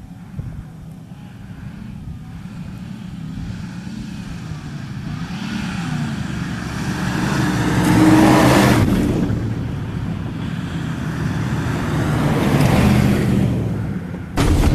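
Pickup truck engine revving as it drives across a sandy dirt field, growing louder to a peak about eight seconds in, easing off, then revving up again, until an abrupt cut near the end.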